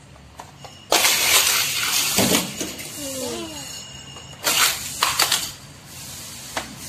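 Plastic toy race track pieces and toy cars clattering and rattling as they are handled: a long rattle about a second in, then two shorter clatters later on. A child's brief vocal sound comes between them.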